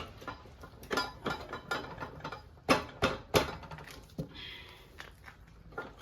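Motorcycle rear axle being pushed by hand through the swingarm, spacers and wheel hub: irregular metal clicks, scrapes and knocks, the loudest about three and three and a half seconds in.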